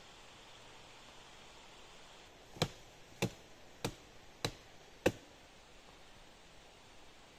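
Hatchet chopping a dead branch: five sharp chops a little over half a second apart.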